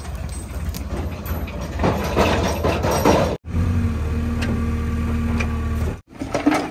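Diesel engines of a JCB 3DX backhoe loader and a tractor running at a worksite, with a stretch of rough scraping and clatter about two to three seconds in. The sound cuts out suddenly for a moment twice, then returns to a steady engine drone.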